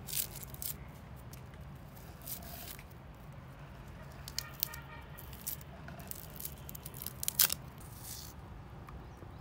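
Small knife peeling and slicing a red onion held in the hand: scattered crisp cutting and tearing clicks, with slices dropping into a steel karahi. The loudest pair of clicks comes about seven seconds in.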